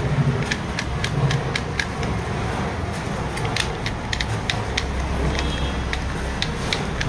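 Irregular light metallic clicks of a key blank, gripped in pliers, being worked in and turned inside a Ford Figo ignition lock cylinder, its wafers catching on the blank to leave marks for the next filing cuts. A steady low rumble runs underneath.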